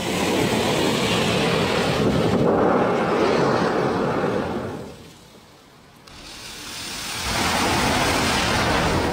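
A mass of safety matches igniting together in a huge flare-up, a loud rushing hiss. It dies away about five seconds in, then builds up again to full loudness.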